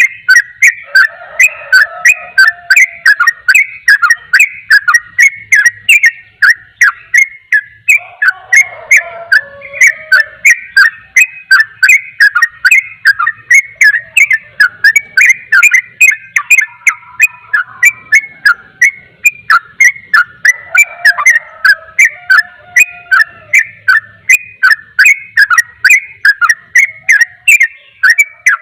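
Yellow-vented bulbul singing in a fast, unbroken chatter of short whistled notes, with loud sharp notes several times a second and now and then a lower warble. This is the rapid 'ropel' song of a bird in full song.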